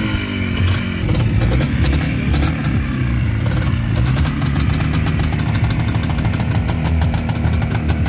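Motorcycle engine running steadily at idle close by, with a fast, dry ticking over it that gets quicker after a few seconds.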